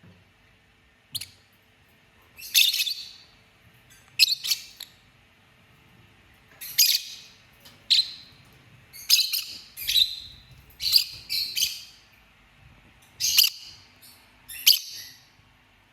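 Lovebird chirping: about eleven short, high-pitched calls spaced a second or two apart, some in quick pairs.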